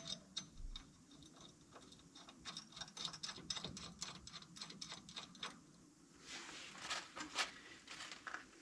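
Light metallic clicking in quick, uneven runs: hand tools working on the hardware as bolts and washers are fitted and tightened.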